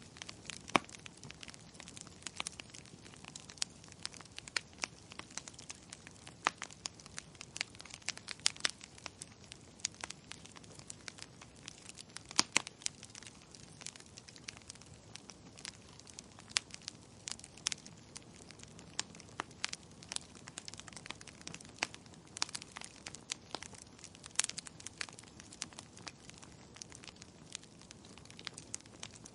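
Wood fire crackling in a fireplace: frequent sharp, irregular pops and snaps over a soft low hiss of burning.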